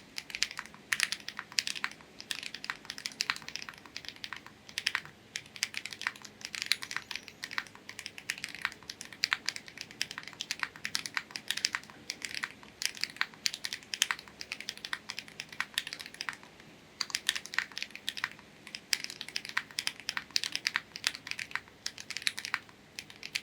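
Typing on a Meletrix Zoom75 mechanical keyboard with Gateron Beer tactile switches, a polycarbonate plate and GMK keycaps: a fast, continuous run of keystrokes with a brief pause about sixteen seconds in.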